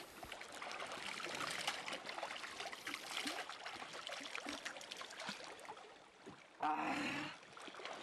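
Shallow glacial-meltwater stream running over stones, with splashing and dribbling as cupped hands scoop the water up and let it pour back. Near the end, a brief man's exclamation.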